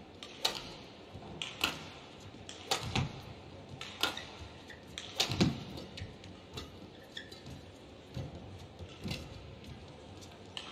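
Badminton rally: a series of sharp racket hits on the shuttlecock, about one a second, in a quiet indoor arena.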